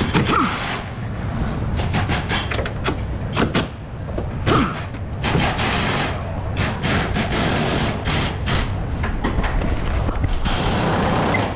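Metal tools clanking and knocking irregularly on the front suspension during strut replacement, over a steady low hum, then a pneumatic impact wrench starts rattling near the end.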